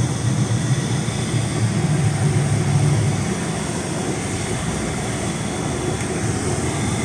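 Mercedes-Benz G500's twin-turbo V8 running at low speed as the SUV wades through a shallow pool, water sloshing and splashing against the body, heard from inside the cabin as a steady low rumble that eases slightly after about three seconds.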